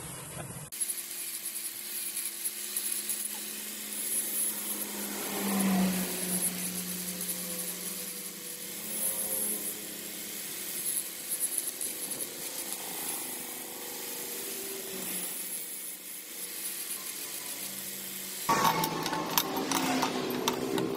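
Angle grinder with an abrasive disc running steadily while grinding a small bent steel part. Near the end it stops abruptly and light clicks follow.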